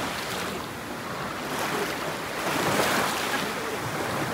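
Ocean surf washing ashore, a wave swelling louder about halfway through.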